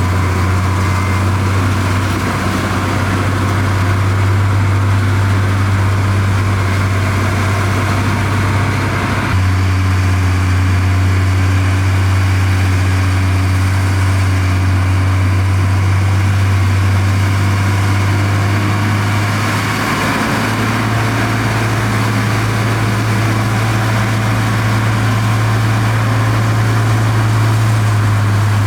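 Heavy diesel engine of earthmoving machinery running at a steady low hum, its pitch and tone jumping abruptly twice as the footage cuts between machines.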